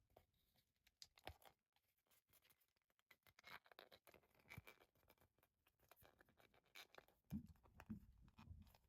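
Faint scratching and rubbing of a rubber RC crawler tire being handled, with a couple of light clicks and a few soft low thumps near the end.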